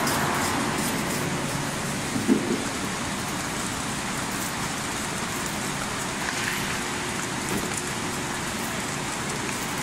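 T660 high-speed candy-making machine running: a steady, even hiss of machine noise, with one brief knock about two seconds in.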